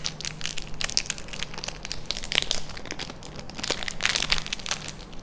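Plastic wrapper of a KitKat chocolate bar crinkling and crackling as it is unwrapped by hand. The quick, irregular crackles grow louder about halfway through and again after about four seconds.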